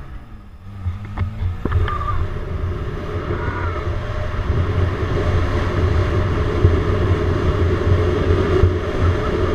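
Toyota Celica Supra's 7M-GE straight-six revving up about two seconds in and then held at high revs while the car is driven hard in slides and donuts. The engine's steady low drone is loud throughout.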